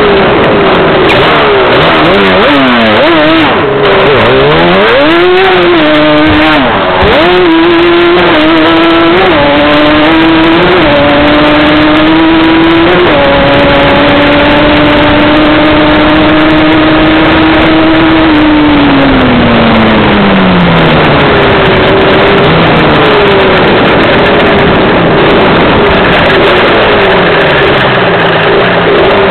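Stock Yamaha Banshee ATV's twin-cylinder two-stroke engine pulling hard, its pitch climbing in steps through the gears, then holding one steady high note for about five seconds before falling away as it slows. Heavy wind rush over the microphone.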